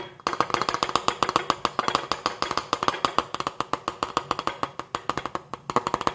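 A spoon tapping rapidly and unevenly against a glass bottle, about ten taps a second, the glass ringing with each tap, as dried thyme is worked in through the neck.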